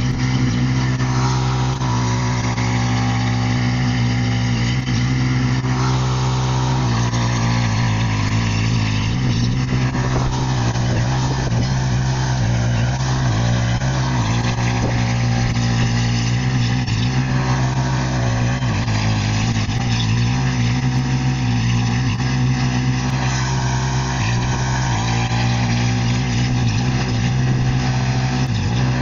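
1974 Allis-Chalmers 712H garden tractor's engine running steadily under load, powering a 42-inch single-stage snow blower, with an even hum that hardly changes in level.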